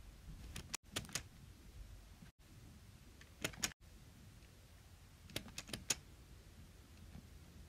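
Close-up ASMR clicking: three short clusters of three to five sharp clicks, about two seconds apart, with brief cut-outs to dead silence between them.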